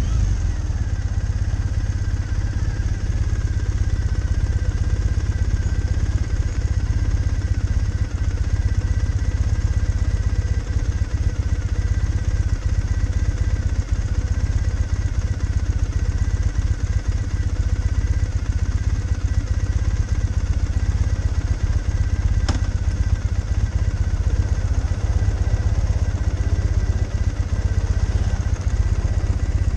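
Triumph Thruxton 900's air-cooled parallel-twin engine idling steadily with the bike at a standstill. A single sharp click comes a little over twenty seconds in.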